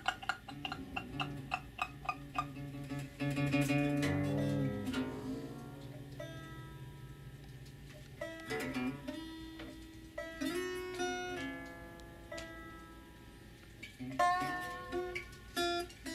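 Free acoustic improvisation on an acoustic guitar laid flat and plucked in short runs of picked notes, over held low tones that slide downward about four to five seconds in. The playing thins to scattered plucks and taps in the middle and picks up again near the end.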